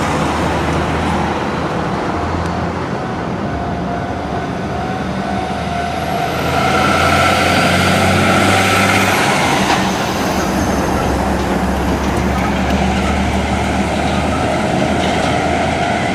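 Heavy diesel double-trailer truck running close by with a steady low engine hum, getting louder towards the middle; a thin high whine rises over a few seconds and stops about nine seconds in.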